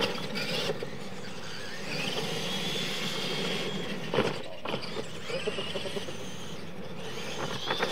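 Radio-controlled monster trucks running on a dirt track: a high motor whine comes in about two seconds in over a steady rough noise of tires and running gear on dirt, with a sharp thump about four seconds in.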